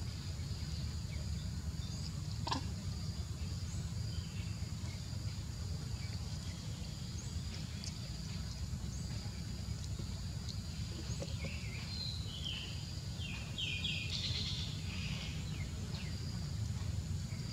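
Outdoor forest ambience: a steady high insect drone over a low rumble, with one sharp click about two and a half seconds in. Near three quarters of the way through comes a quick run of short high-pitched animal chirps.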